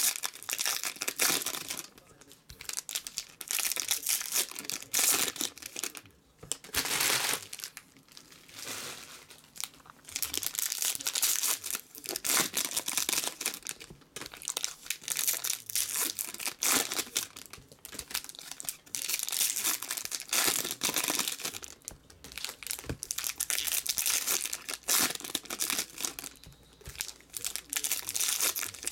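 Foil trading card pack wrappers crinkling in repeated bursts as the packs are handled and torn open.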